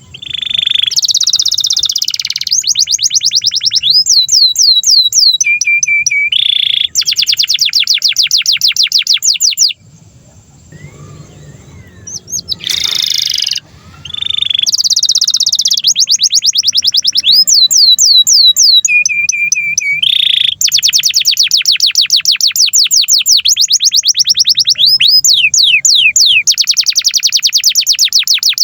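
Canary singing a long, loud song of fast trills and rolls, each run made of rapidly repeated sweeping notes. There is a break of a few seconds about ten seconds in, after which the song resumes.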